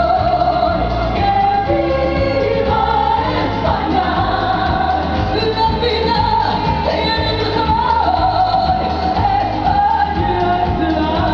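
A woman singing a pop song into a microphone over amplified backing music with a steady bass beat.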